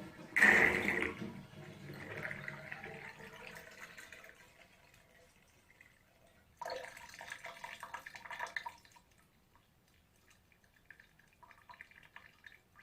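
Small water drops dripping into a bathtub, each one plinking with a short echo off the tub. There is a loud cluster of drips about half a second in, another run of drips about two-thirds of the way through, and faint single drips near the end.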